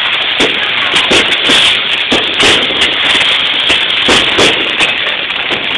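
Fireworks going off: a dense, irregular run of sharp pops and crackles, several a second.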